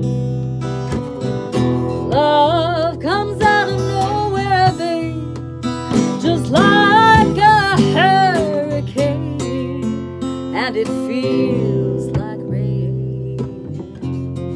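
A woman singing with vibrato over a strummed acoustic guitar and an acoustic bass guitar, her voice coming in long phrases with the instruments playing steadily underneath.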